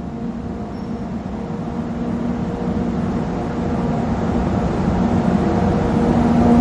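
EF64 electric locomotive running, its motor and blower hum growing steadily louder as it comes on.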